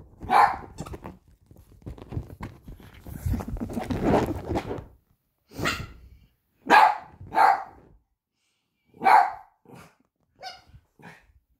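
Dogs at rough play: about five short sharp barks, one right at the start and four more from about five seconds in, with a rough scuffling, grumbling stretch before them and a few small yips near the end.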